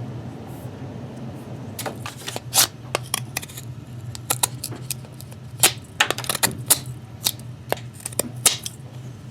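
Ontario RAT II folding knife slicing through cardboard: a run of sharp, irregular crackles and snaps from about two seconds in.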